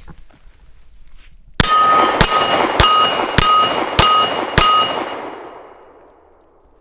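Six pistol shots in quick, even succession, each striking a steel target that rings out at the same pitch, the ringing dying away over about two seconds after the last shot.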